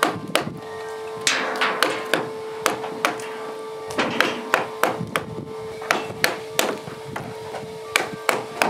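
Chisel driven into an oak beam with repeated blows from a mallet: a steady run of sharp knocks, about three a second.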